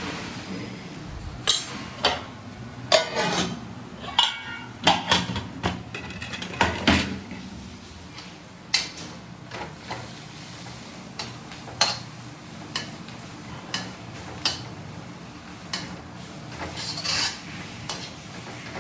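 Pots, pans and metal cooking utensils clattering and clinking, a string of sharp knocks, some ringing briefly, crowded together in the first seven seconds and then more spaced out.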